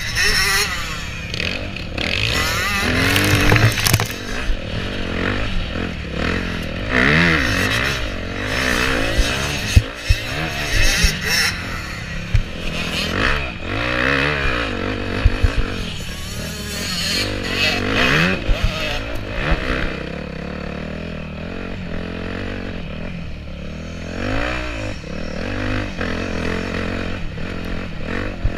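Motocross bike engine revving up and falling back again and again as it is ridden hard over a rough dirt track, heard from a helmet-mounted camera. Frequent knocks and rattles from the bumps, with wind noise underneath.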